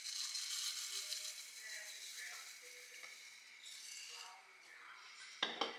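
Dry rolled oats poured from a glass jar into a metal pot, a rushing hiss for about two seconds. Then a wooden spoon stirs them, with a sharp knock against the pot near the end.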